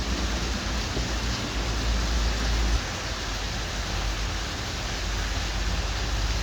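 Steady background hiss with a low hum underneath; the hum eases about three seconds in.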